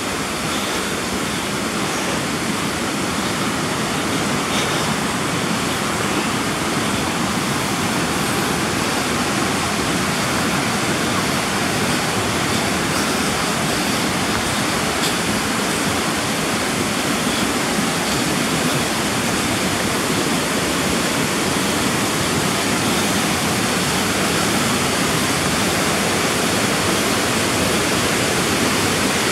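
Steady rush of flowing water from a river and waterfall, growing slightly louder.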